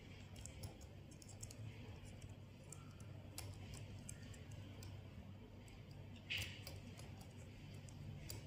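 Faint small clicks and light scraping of an Allen key turning a small screw in a pen plotter's metal pen-holder bracket, with one louder short scrape about six seconds in. A low steady hum runs underneath.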